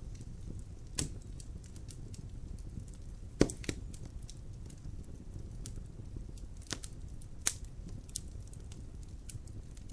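Wood fire in a fireplace crackling: a steady low rumble of the flames with irregular sharp pops and snaps, the loudest about 1, 3.5, 7 and 7.5 seconds in.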